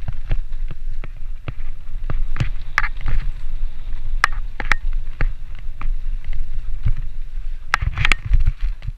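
Wind rumbling on the microphone while a bike jolts over a rough forest trail, with frequent rattles and sharp knocks from the bike, the loudest clusters about three seconds in, about halfway and near the end.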